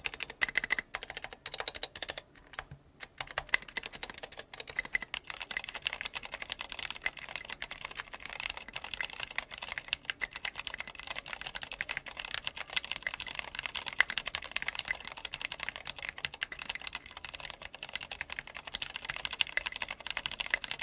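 Typing on a Cherry MX Board 3.0 mechanical keyboard fitted with tall SA-profile ABS keycaps: a dense, continuous run of clacky keystrokes, with a short pause about two seconds in. The clack comes from the keycaps striking the top of the switch housings.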